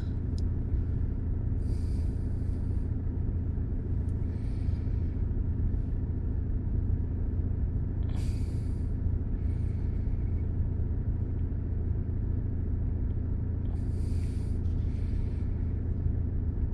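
Car engine idling steadily, a low even rumble, with faint short hisses every few seconds.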